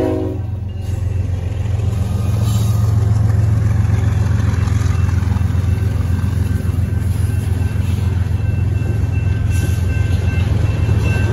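BNSF diesel-electric freight locomotives passing close with a loud, steady, deep engine drone, followed by freight cars rolling by. A train horn cuts off just at the start, and the drone swells about a second in.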